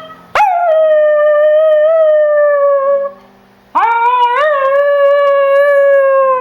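Miniature schnauzer howling: two long howls, each starting with a quick upward swoop and then held while slowly falling in pitch, with a short pause between them.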